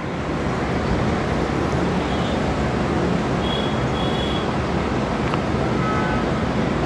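Steady road-traffic noise from passing vehicles, with two short high beeps about halfway through.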